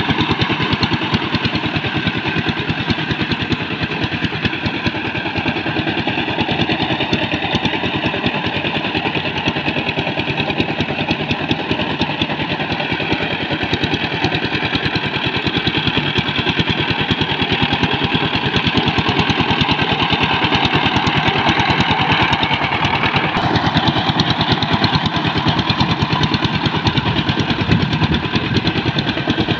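Single-cylinder diesel engine of a two-wheel power tiller running steadily under load, a fast, even chugging, as its cage wheels drive it through flooded paddy mud.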